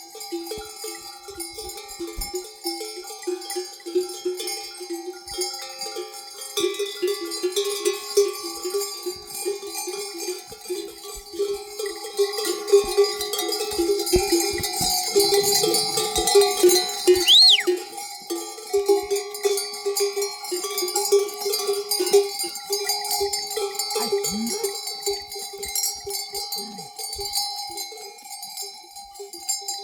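Many sheep bells clanking and ringing irregularly as a flock of sheep moves and grazes. A single short whistled note sounds about halfway through.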